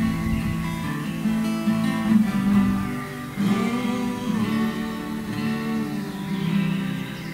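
Two unamplified acoustic guitars being strummed and picked together, the playing dying away near the end.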